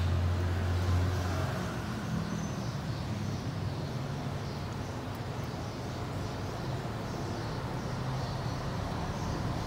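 Steady low motor hum over outdoor background noise, strongest in the first second and a half, then carrying on more faintly.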